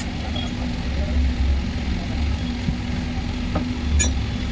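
Mahindra Bolero Neo engine idling steadily with a low hum, and a single sharp click about four seconds in.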